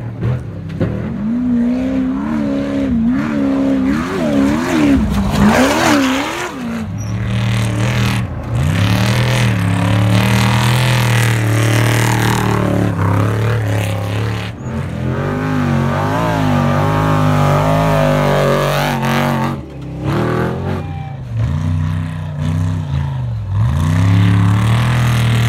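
Desert off-road race trucks (trophy trucks) passing one after another on a dirt course, their engines revving up and down as they accelerate through. The sound breaks off abruptly a few times between passes.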